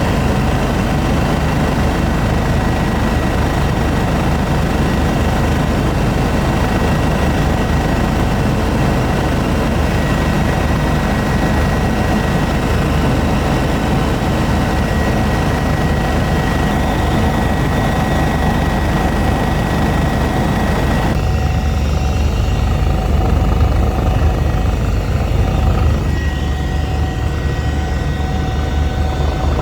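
Eurocopter EC145 twin-turbine helicopter in flight: steady rotor and turbine noise with a deep rumble and a constant whine. About 21 seconds in, the sound turns duller, with less treble and more low rumble.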